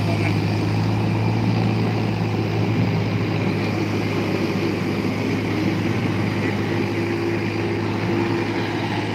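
Steady drone of idling engines on an airport apron, a constant low hum with a few fainter steady tones above it.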